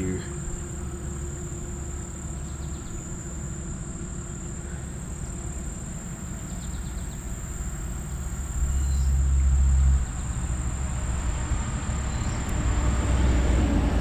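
Low rumbling of creek water moving against a partly submerged action camera's housing as a minnow trap is emptied, swelling louder about two-thirds of the way in and again near the end. A steady high insect drone runs underneath.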